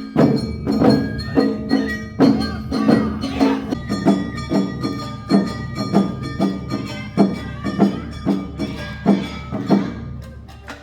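Awa Odori festival band playing the dance's two-beat rhythm. Metal hand gongs ring and drums strike about twice a second over melodic instruments, and the band's sound changes a few seconds in before fading toward the end.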